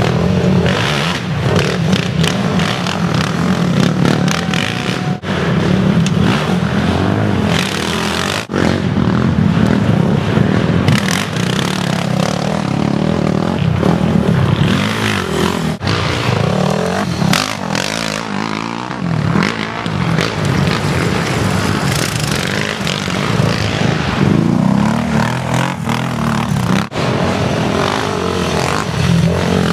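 Racing ATV (quad) engines revving hard and rising and falling in pitch as riders power through mud and up the trail. The sound cuts out for an instant a few times.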